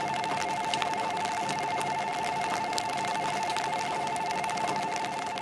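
Railway level-crossing warning bell ringing, an electronic two-tone ding repeated rapidly and steadily while the crossing lights flash. Light rain ticks and patters underneath.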